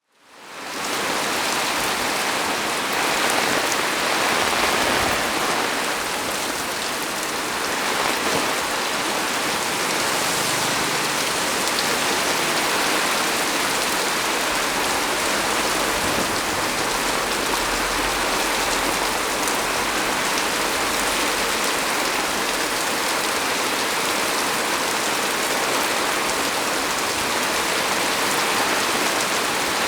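Heavy rain falling on a small tree, a steady dense hiss that fades in at the very start.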